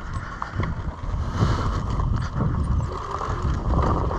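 Riding noise from an electric dirt bike on a dirt trail: wind buffeting the microphone over a rumble of tyres and chassis, growing louder after about a second.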